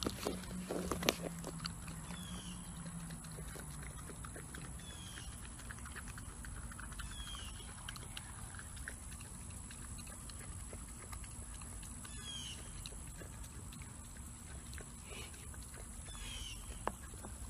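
Golden retriever puppy licking whipped cream from a small paper cup: a run of quick wet smacking and lapping clicks, with a few louder knocks in the first second. Short high falling chirps recur every couple of seconds behind it.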